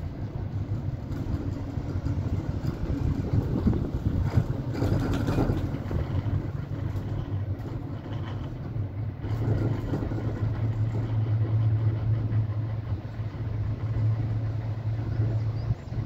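Steady low rumble and rushing noise of a vehicle in motion, swelling about four to six seconds in.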